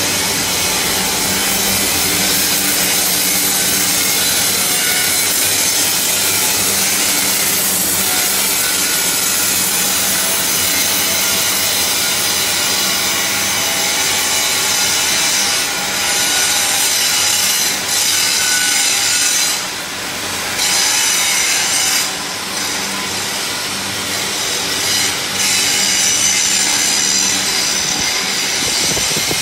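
Angle grinders grinding steel castings: a loud, steady, harsh whine that briefly drops away several times in the second half.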